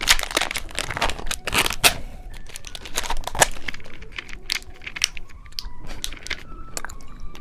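Plastic candy wrappers crinkling and tearing as packaged sweets are handled and opened: dense crackling for about the first two seconds, then sparser crinkles.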